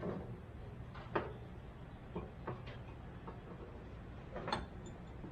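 Scattered light clicks and knocks of metal parts being handled, about six in all, the sharpest about a second in and another a little past four seconds, over a steady low hum.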